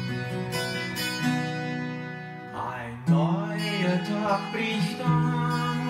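Acoustic guitar played as a song's intro, chords struck and left to ring every second or two. A man's singing voice comes in about halfway through over the guitar.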